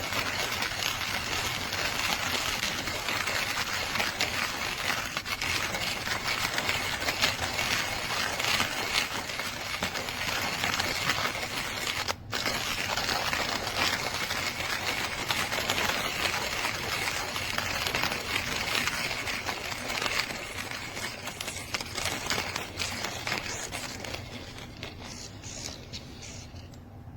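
JavaPresse stainless steel manual conical burr coffee grinder being cranked by hand, the coffee beans crunching between the burrs in a dense, steady crackle. It stops briefly about twelve seconds in, then carries on and tapers off near the end.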